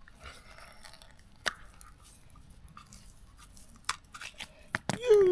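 Scattered light clicks, taps and scrapes of small metal parts and hand tools being handled during brake-cylinder work. Just before the end a loud held tone starts with a quick rise and then settles a little lower.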